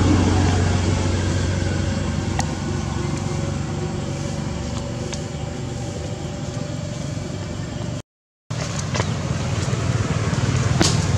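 A steady low motor hum, like a vehicle engine running in the background, with a few faint clicks. The sound cuts out completely for about half a second around eight seconds in.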